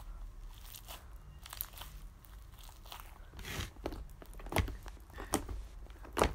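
Homemade butter slime being squeezed and kneaded in the hands, giving soft crackles and sticky pops, with a few louder pops in the second half.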